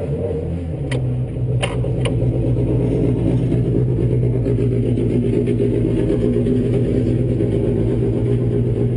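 Racing car engines idling steadily in a start queue. The sound grows a little louder about a second in, and a few sharp clicks come in the first two seconds.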